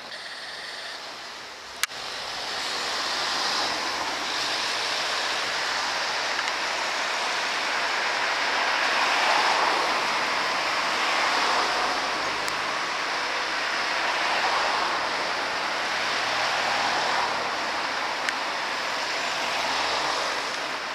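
Steady noise of road traffic on a busy street, with a sharp click about two seconds in, after which it is louder.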